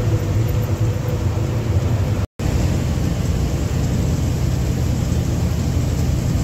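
Steady engine and road noise of a lorry heard from inside its cab while driving on the highway, cutting out for an instant about two seconds in.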